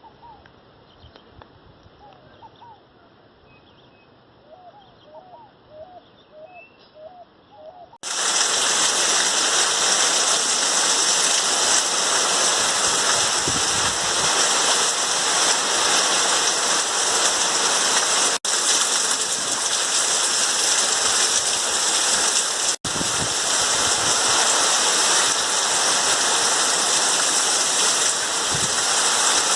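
Heavy rain pouring down, a dense, steady hiss of rain and running water that starts suddenly about eight seconds in and briefly cuts out twice. Before it is a quieter outdoor background with a few short, high chirps.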